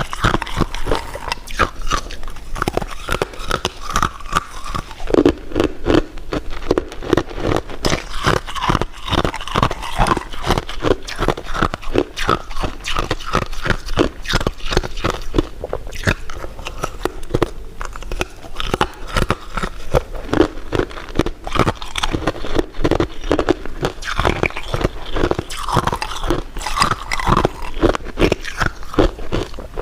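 Close-miked eating: steady biting and chewing, with a dense run of small crunches and clicks.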